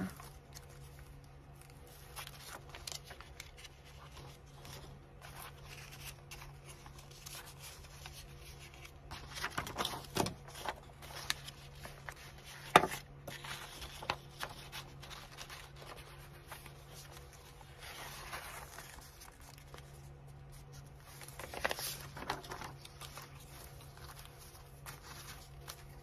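Sheets of paper being handled and moved about on a table: rustles about ten seconds in and again twice later, and one sharp tap about halfway through, over a steady low hum.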